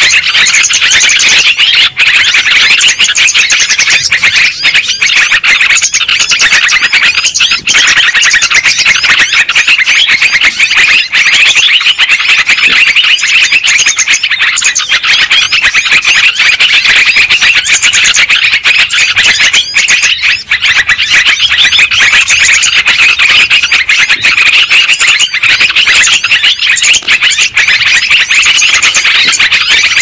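Yellow-vented bulbul calls playing as a loud, unbroken stream of chirps. This is a lure recording (pikat) meant to draw wild bulbuls in for trapping.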